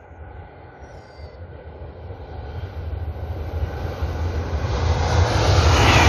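KTX-Sancheon high-speed train running at about 300 km/h, approaching and passing: a rushing noise that grows steadily and is loud about five seconds in as the train reaches the passing point.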